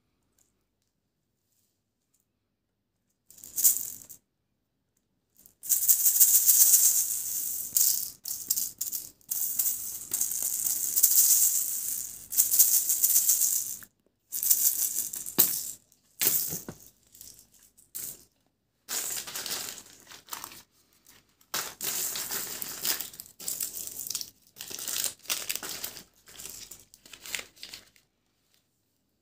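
Plastic candy packaging and hard plastic candy toys rustling, crinkling and rattling as they are handled, in irregular bursts with dead-silent gaps between.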